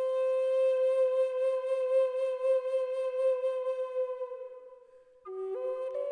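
Background music on a solo flute. One long held note fades away about five seconds in, then a new phrase starts on a lower note and steps up.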